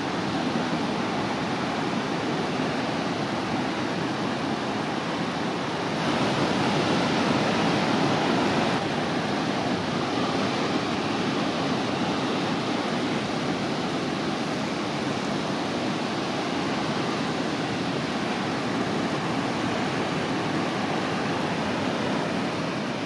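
Steady wash of ocean surf, a little louder from about six to nine seconds in.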